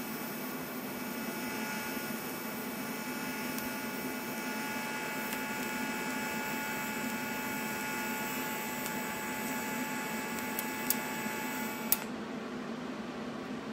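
TIG welding arc from an Alpha 200X welder burning steadily as filler rod is fed into the puddle: an even buzzing hiss with a faint high whine. About twelve seconds in, after two sharp clicks, the arc cuts off and only a low hum remains.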